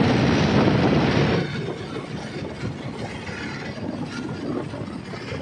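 Rumbling noise of a moving tractor on the road, with wind on the microphone. It is loudest for the first second and a half, then runs steadier and a little quieter.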